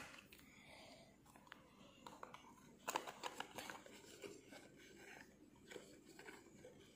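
Faint handling noises as a small medicine dropper bottle is pushed into its cardboard box: light scraping and rustling of card, with scattered clicks and one sharper knock about three seconds in.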